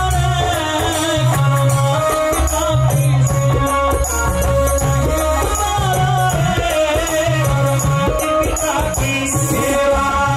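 Instrumental interlude of a live Haryanvi bhajan band: a wavering melody line over a bass figure that repeats about every two seconds, with dholak and other percussion keeping a steady beat.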